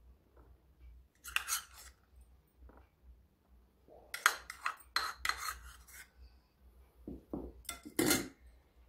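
A metal spoon clinking and scraping against plastic bowls while scooping pomegranate seeds, in three short clusters of clicks: about a second in, from about four to six seconds in, and near the end.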